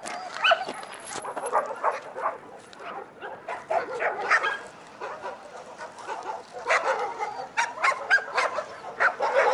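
Laika dogs barking and yelping over and over, several calls overlapping.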